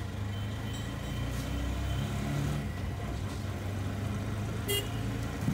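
Auto-rickshaw engine running steadily as it drives along, heard from inside the open cab, with a short horn toot near the end.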